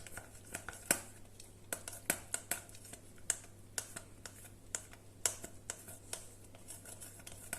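Hard cheese being grated by hand, an irregular run of short scrapes and clicks.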